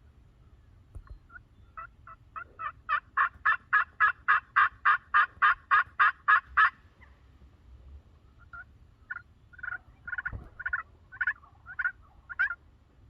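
Turkey yelping: a long run of evenly spaced yelps, about three a second, that grows louder over the first few notes. After a short pause a softer, less regular series of yelps follows.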